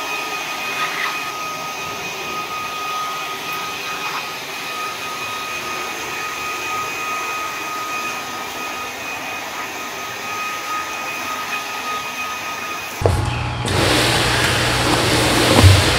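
Electric pond vacuum running steadily, its motor whining at a fixed pitch as it sucks dirty water out of the drained koi pond. About 13 seconds in the sound cuts abruptly to a louder, steady low hum with a rushing noise.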